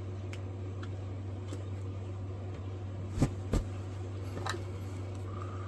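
Steady low hum, with two dull knocks in quick succession about three seconds in and a lighter click about a second later.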